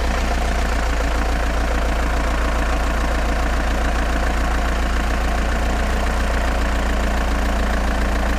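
Tractor engine idling steadily just after starting, with a strong low, even running note.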